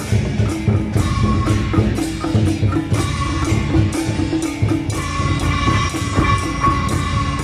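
A temple procession drum troupe plays fast, dense rhythms on a large ceremonial drum and other drums, over music with held tones.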